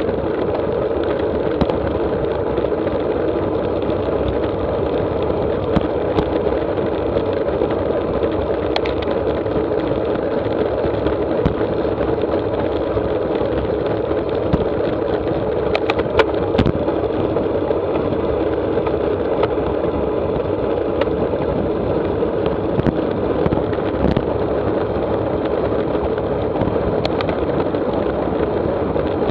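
Steady rush of wind and road noise on the handlebar-mounted camera of a road bike riding at about 30 mph, with a few light clicks scattered through it.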